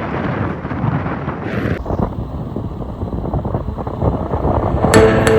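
Loud, steady low rumbling noise with no tones in it. Near the end, music with sharp chime-like strikes comes in.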